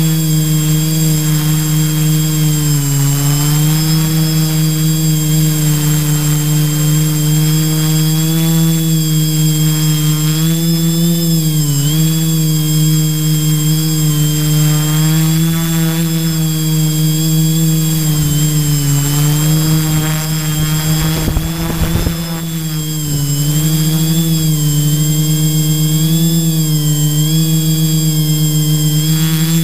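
Electric tricopter's brushless motors and propellers buzzing steadily as it flies, heard from its onboard camera, the pitch wavering with throttle changes. About three-quarters through, the sound dips briefly with a few knocks.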